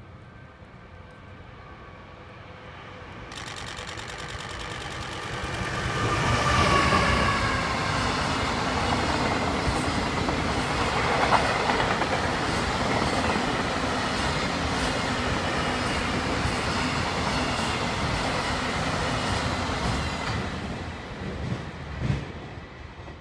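An EF210 electric locomotive hauling Koki 100 container flatcars passes at speed. The sound builds over the first few seconds, with a falling whine as the locomotive goes by. Then comes a long steady run of wagon wheels clattering over the rails, which dies away near the end with a short knock.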